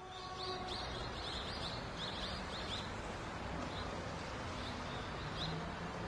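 Outdoor ambience of small birds chirping in quick runs of short high notes over a steady background hiss. It fades in at the start, and the chirps thin out after about three seconds.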